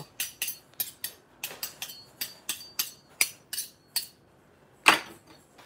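Two steel 3D-printer bed scrapers clinking together, a quick irregular run of metallic clicks, about three or four a second, with a faint ring. One louder clack comes about five seconds in.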